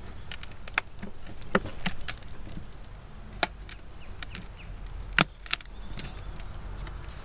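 Sharp cracks and clicks, about half a dozen, the loudest about five seconds in, as the beehive's lid is pried loose to open the hive.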